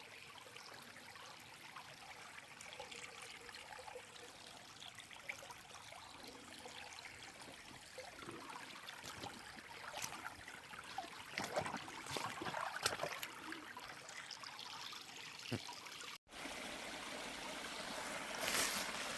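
Spring water trickling and running in a small stream, with scattered light splashes and clicks in the middle. The sound drops out for a moment near the end and comes back louder.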